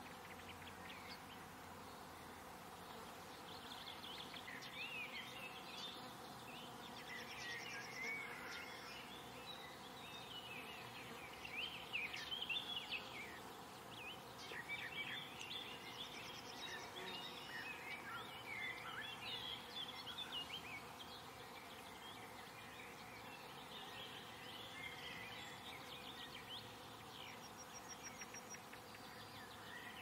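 Garden birds chirping and warbling in quick short phrases over a faint steady background hiss; the song grows busier after a few seconds, is busiest around the middle and thins out near the end.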